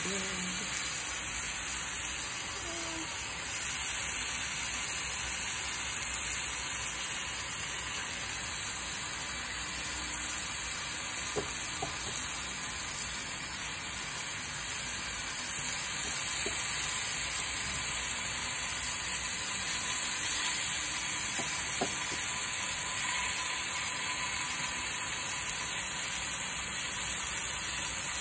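Marinated pork chops sizzling steadily on an indoor grill pan, with a couple of faint clicks.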